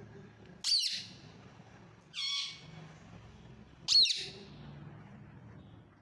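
Indian ringneck parakeet squawking three times: a sudden high, sharp call about a second in, a slightly longer call about two seconds in, and another sudden high, sharp call about four seconds in.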